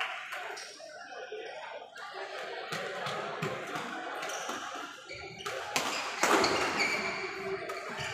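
Badminton rally: rackets smacking a shuttlecock, with the hits starting about halfway through and coming quickly near the end, echoing in a large hall over background voices.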